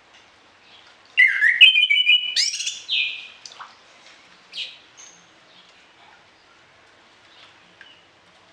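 Orange-headed thrush singing a loud phrase of quick, varied notes lasting about two seconds, a second or so in, followed by a few fainter single notes. Faint chirps sound in the background for the rest of the time.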